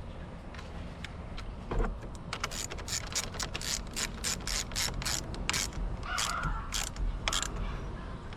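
Hand ratchet wrench clicking as it is worked back and forth, a run of sharp clicks about three a second that starts about two seconds in and stops near the end.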